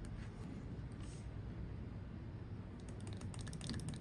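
Knife blade scraping and cutting into the plastic outlet tube of a TI Automotive (Walbro) 525 fuel pump, trimming it to length: a run of small, quick clicks that thicken near the end, over a low steady hum.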